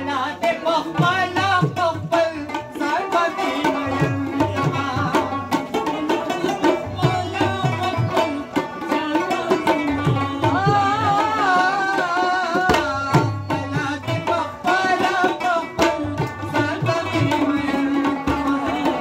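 Tabla playing a steady rhythm, with deep bass-drum strokes, under plucked rabab, while a man sings long, wavering, ornamented lines of a Pashto ghazal.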